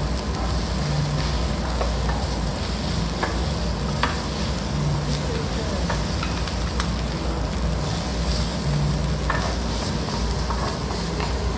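Fried rice sizzling on a hot griddle plate as a wooden spatula stirs and scrapes it, with the spatula clicking against the plate every second or two.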